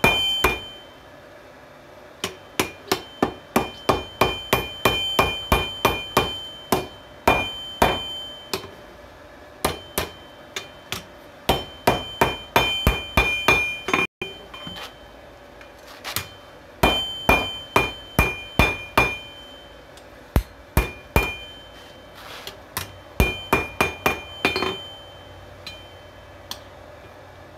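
Hammer blows on a railroad spike laid over a 66 lb anvil, forging it out. They come in runs of several quick strikes, about three a second, with short pauses between runs, and the anvil rings after the blows.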